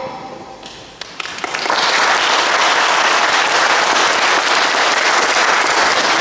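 Audience applause: a few scattered claps about a second in, then steady clapping.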